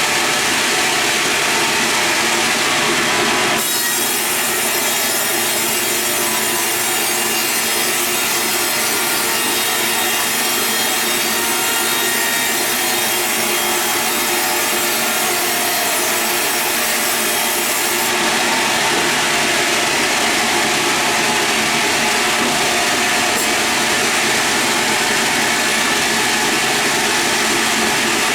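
Sawmill saw cutting lengthwise through a large log. It is a continuous sawing sound with a steady whine in it. The tone shifts about three and a half seconds in, and again about halfway through.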